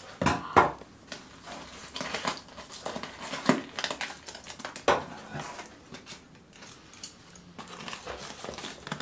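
Paper packing crinkling and rustling, with scattered sharp clicks and knocks from hands handling things in a cardboard box.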